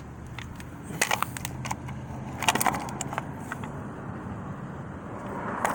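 Metal parts of a car's tilt steering column being handled and worked, giving light clinks and rattles, with a few sharp clicks about a second in, a cluster around two and a half to three seconds in, and another near the end, over a faint steady low hum.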